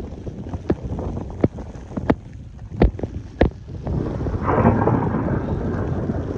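Wind buffeting the microphone in a snowstorm, with six sharp knocks in the first few seconds and a louder gust rushing in about halfway through.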